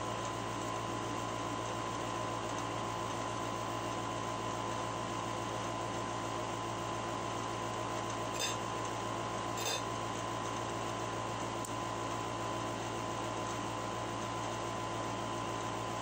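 Steady room hum with a constant high tone. About eight and a half seconds in, two light clinks a little over a second apart, like a spoon or utensil tapping a plate.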